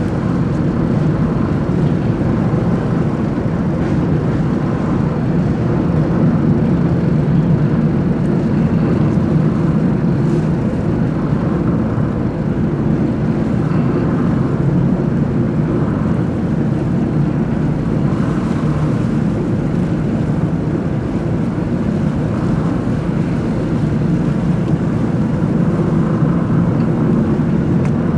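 A boat's engine droning steadily at constant speed, a low hum with no change in pitch.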